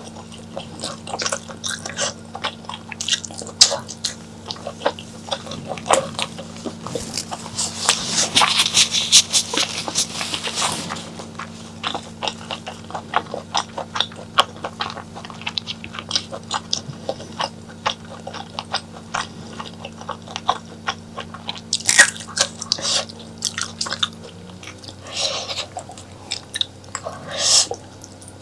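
Close-miked eating sounds of spicy mutton and honeycomb tripe curry: chewing and biting with many small wet clicks and smacks. There is a denser, louder stretch about eight to eleven seconds in, over a steady low hum.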